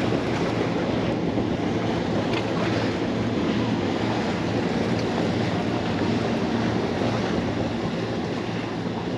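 Sea waves washing against the rocks and wind on the microphone, with the low, steady drone of a passing motorboat's engine underneath.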